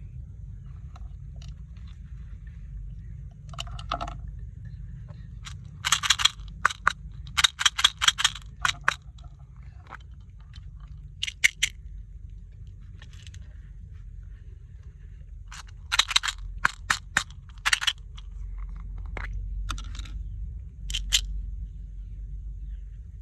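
Handling noise of sharp crackling and crunching clicks in several clusters, about six seconds in, again near the middle, and from about sixteen seconds on, over a steady low hum.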